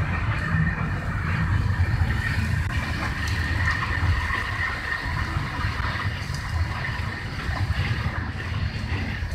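Passenger train running at speed, heard from inside the carriage: a steady low rumble of wheels on track, with a faint steady high whine above it.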